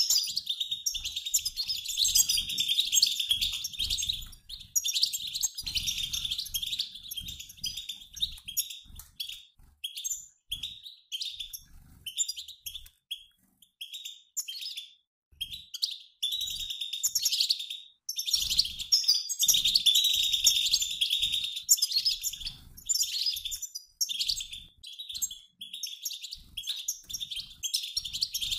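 A mixed group of European goldfinches, males and females, twittering in a dense run of quick, high notes, like a flock passing over. It breaks off briefly a couple of times near the middle. This is the flock chatter keepers play to set caged male goldfinches singing.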